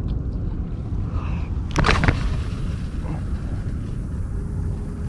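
Wind rumbling on the microphone throughout, with a sharp whoosh about two seconds in as a fishing rod is cast, then a faint high hiss of line running off the reel for about three seconds that stops suddenly.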